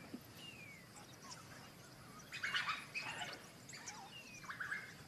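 African wild dogs twittering: faint, high-pitched short chirps and falling calls, bunched in clusters about two and a half seconds in and again near four seconds. This is the excited twittering that rallies the pack before a hunt.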